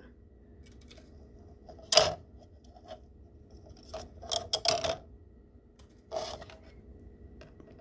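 Handling of a 3D-printed plastic wall panel and its thin breakaway support strip: a sharp plastic click about two seconds in, a cluster of clicks around four to five seconds, and a brief scrape near six seconds.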